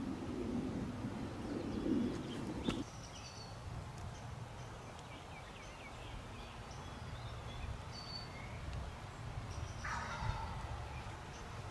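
Wild turkey gobbling once, about ten seconds in, with songbirds chirping faintly. A low rushing noise stops abruptly about three seconds in.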